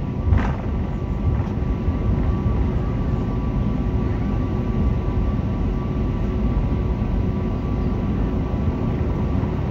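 Cabin noise of an Airbus A320-family airliner taxiing: a steady low rumble from the jet engines at taxi power and the wheels, with a faint steady whine over it. A short click comes about half a second in.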